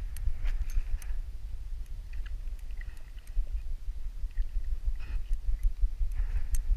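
A dog sniffing the ground, picked up by a GoPro Hero4 on a chest harness: a few short bursts of sniffing and light clicks of its dangling metal collar tags over a constant low rumble of the camera moving against the dog's chest.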